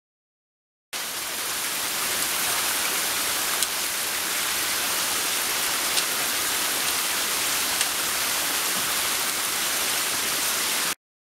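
Small waterfall streaming down a rock face, a steady rushing splash, with a few faint clicks over it. It starts abruptly about a second in and cuts off just before the end.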